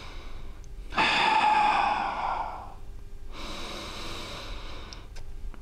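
A man breathing deeply and audibly through a held forearm plank. A loud breath starts abruptly about a second in and fades over nearly two seconds, then a quieter breath follows.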